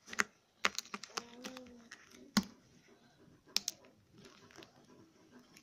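Irregular sharp crackles and clicks of a vacuum-sealed plastic oyster package being handled and worked open by hand.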